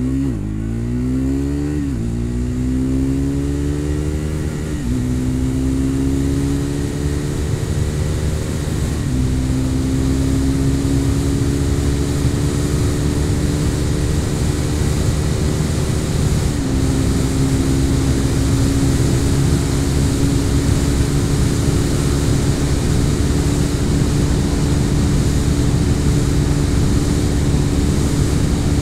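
Triumph Speed 400's single-cylinder engine at full throttle through the gears on a top-speed run. The pitch climbs and drops at each of four upshifts, about 2, 5, 9 and 17 seconds in, then holds high and steady near its top speed of about 160 km/h. Wind rushes over the microphone.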